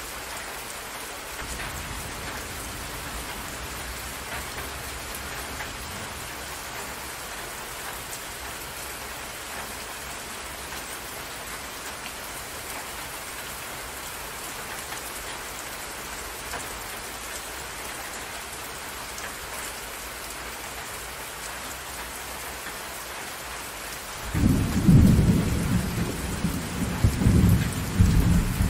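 Rain falling steadily, an even hiss of drops. About 24 seconds in, a loud, low rumble of thunder breaks in and rolls on over the rain.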